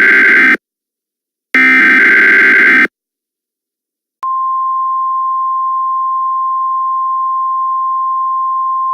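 Emergency Alert System SAME header: the tail of one harsh digital data burst, then another burst about a second and a half in. After a gap of silence, a single steady attention tone starts about four seconds in, a little quieter than the bursts.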